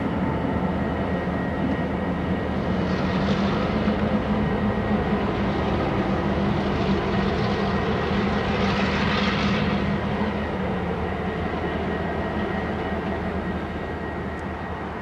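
EMD GP38-2 diesel locomotives, non-turbocharged 645 engines, running steadily at light throttle as they move slowly by. A rushing hiss swells twice over the engine sound, and the sound fades slightly near the end as the units draw away.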